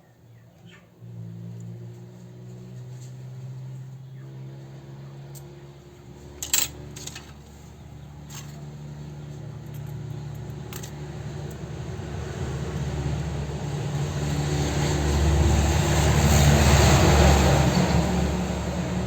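Motor vehicle engine running, with a low hum that starts about a second in and a noise that slowly grows louder, peaks near the end and begins to fade, as a vehicle passing close by. A sharp click about six and a half seconds in.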